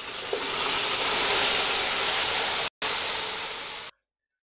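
Yogurt-marinated chicken tipped into hot oil in a large pot, sizzling loudly with a steady hiss as the wet marinade hits the oil. The sizzle breaks off for an instant just before three seconds in and cuts off suddenly near the end.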